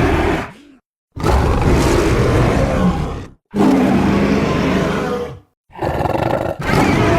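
Night Fury dragon roar sound effects: one roar fades out just after the start, then three more follow, each about two seconds long, separated by short silent gaps.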